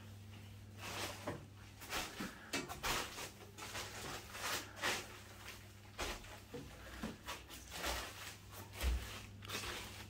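Footsteps and irregular rustling on plastic dust sheets as someone walks through the rooms, over a steady low hum.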